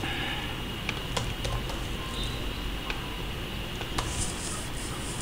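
Sparse computer keyboard clicks, a handful over a few seconds, over a steady low hiss, with a short soft hiss about four seconds in.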